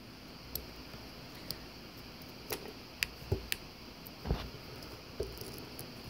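Handling noise as loose wires are worked into a strobe's connections: about eight small clicks and taps at irregular spacing.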